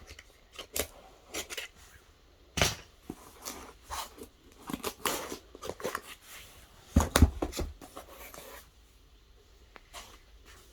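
A parcel of succulents being opened by hand: scissors and tape, with irregular rustling, tearing and knocks of packaging. The loudest handling comes about two and a half seconds in and again around seven seconds in, then it goes quieter.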